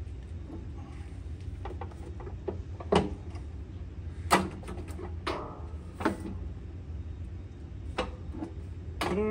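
Metal clicks and knocks of parts being fitted by hand to a steel mower deck while the discharge chute and its spring are hooked on with vise grips, two sharp clanks about three and four and a half seconds in and lighter taps after. A short steady pitched hum starts near the end.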